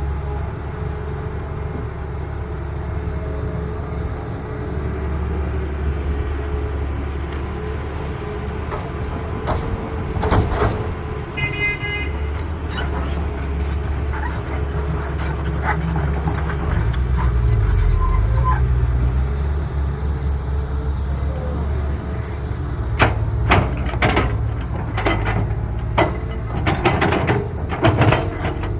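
Diesel engines of a CAT excavator and dump truck running steadily, the engine revving up for a few seconds past the middle. A short horn toot comes about twelve seconds in, and a run of knocks and clatters near the end fits dirt and rock dropping into a dump truck bed.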